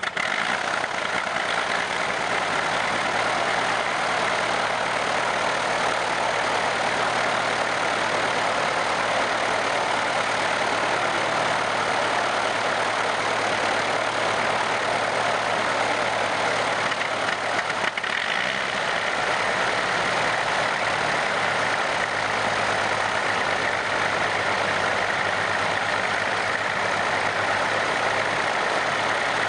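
The six-cylinder de Havilland Gipsy engines of a de Havilland DH.89 Dragon Rapide biplane running steadily on the ground, with a slight change in the engine note about 18 seconds in.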